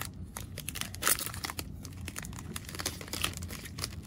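Foil wrapper of a baseball card pack crinkling and tearing as it is ripped open by hand and the cards are pulled out, in a run of irregular crackles.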